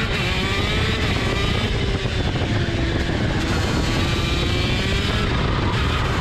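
TM KZ10c 125 cc two-stroke shifter kart engine at full throttle, accelerating out of a corner, its note wavering with a brief dip about two seconds in.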